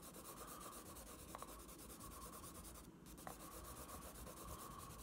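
Red Conté crayon hatching shadows on sketchbook paper: faint, fast, even scratching of quick strokes, with a brief pause about three seconds in.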